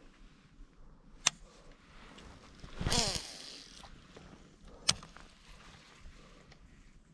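A cast with a baitcasting rod and reel: a sharp click from the reel, then about three seconds in a short rush of the rod swishing and the spool whirring as it pays out line, falling in pitch as the spool slows, and another sharp reel click a couple of seconds later.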